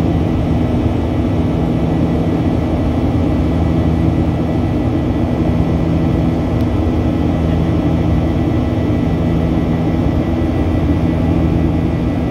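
Jet airliner cabin noise heard from a window seat in the climb after takeoff: a steady, even drone of the engines and rushing airflow, low in pitch, with a couple of constant hums underneath.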